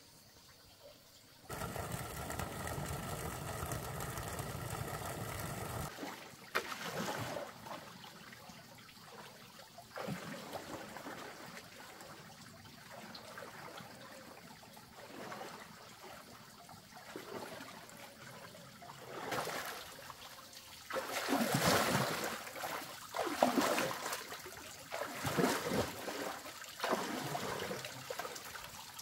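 Water running and trickling: a steady flow for a few seconds, then uneven pours, with louder gushes and splashes in the second half.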